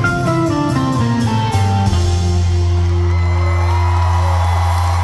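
Live band with guitar playing a quick descending run of notes, then settling about two seconds in on a long held chord. A crowd starts cheering over the held chord.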